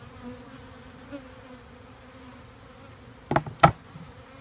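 Honeybees buzzing steadily around an opened hive, with two sharp knocks close together about three seconds in.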